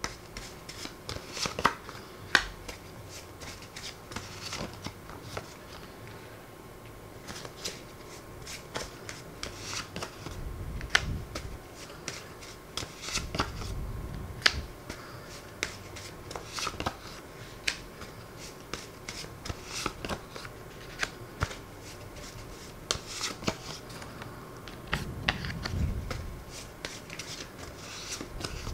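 Hands shuffling and flicking through a stack of small paper word cards and laying them down one by one: a run of quick dry paper clicks and rustles, with a few soft low bumps.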